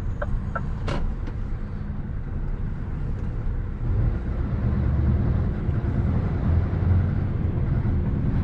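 Heavy lorry's diesel engine running, a steady low rumble that grows louder about four seconds in, with a single sharp click about a second in.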